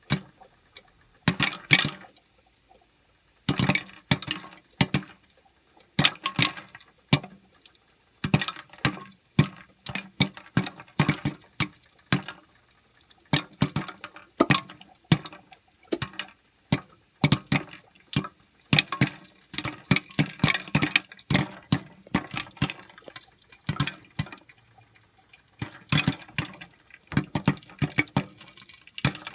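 Popcorn kernels popping: many irregular sharp pops, bunched in clusters with short lulls between.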